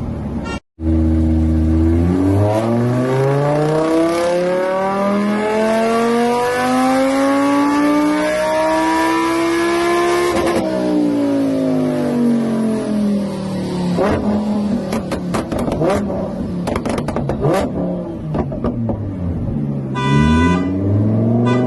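Car engine accelerating, its pitch climbing steadily for about eight seconds, then dropping back as it slows. Sharp crackles and pops follow a few seconds later.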